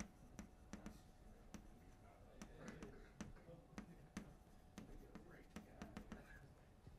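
Chalk writing on a blackboard: a faint, irregular string of sharp taps and clicks, about two or three a second, as the letters are struck and drawn.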